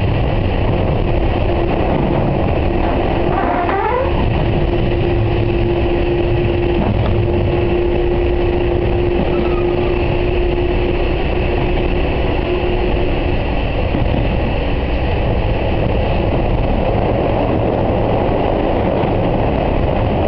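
Former Seibu 701 series electric train running along the track, heard from inside the car: a steady rumble of wheels on rail, with a steady hum through the first half and a brief rising tone about four seconds in.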